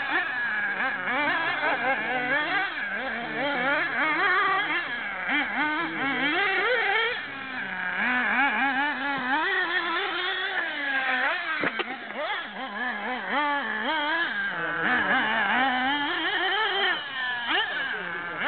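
Radio-controlled 1/8-scale off-road buggy's small nitro engine buzzing hard, its pitch rising and falling over and over as it is throttled up and lifted off through the corners. A single sharp knock stands out a little past the middle.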